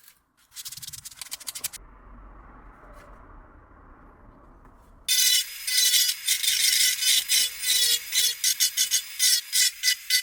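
Sanding of the grip of a VFC Glock 17 airsoft pistol frame. Short rubbing strokes come first, then a quieter stretch. About five seconds in a much louder, harsh grinding starts, with a steady whine and a fast pulsing.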